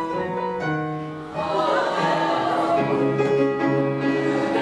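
Live stage music led by a grand piano playing held notes and chords; about one and a half seconds in the music gets louder as more parts join and it settles into a steady beat.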